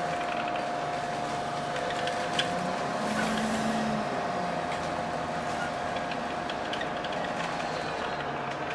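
Interior of an Alexander Dennis Enviro400 Hybrid (E40H) double-decker bus under way: a steady high whine from the drive over road noise, with light rattles from the interior fittings and one sharper rattle about two and a half seconds in.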